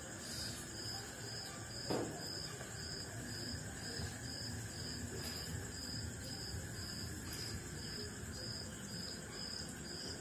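Insects chirping: a regular high chirp about twice a second over a steady high drone, with one brief knock about two seconds in.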